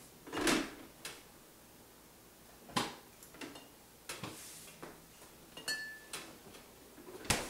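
Refrigerator door pulled open, items knocked and shifted on the shelves with a short ringing clink as cans are taken out, then the door pushed shut with a thump near the end.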